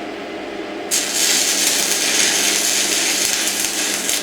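Stick-welding arc from a Zubr MOSFET welding inverter, a loud steady crackling hiss that starts about a second in over a low hum. It cuts off suddenly near the end as the welder trips into protection mode, which the repairman takes for a false trip of the protection.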